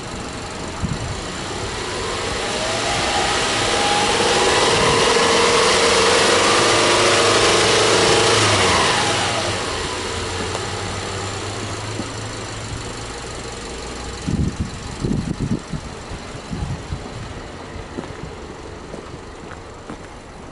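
Subaru Legacy Touring Wagon's 2.5-litre flat-four (boxer) engine revved up from idle about two seconds in and held at raised revs for several seconds, then dropping back to a steady idle. A few knocks come later.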